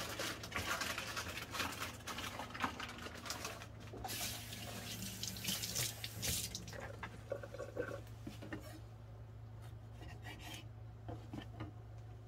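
Kitchen tap running water into a stainless steel sink, shut off about six and a half seconds in. After that come quieter scattered handling clicks, over a low steady hum.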